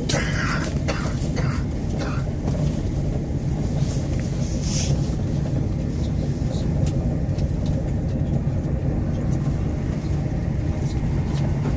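Steady low rumble of a train running, heard from inside the carriage. A few short bursts come in the first second or so, and a brief noisy burst about five seconds in.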